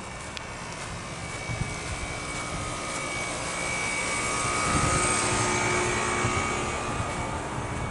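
Airplane passing overhead: a rumble with a high whine that swells to its loudest about five seconds in, then fades.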